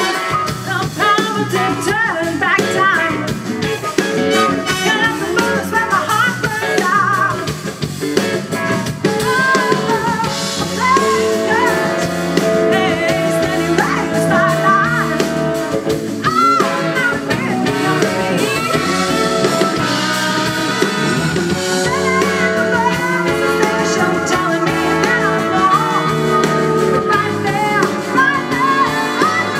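Live soul band playing: a woman sings lead over electric guitar and a drum kit, with no break in the music.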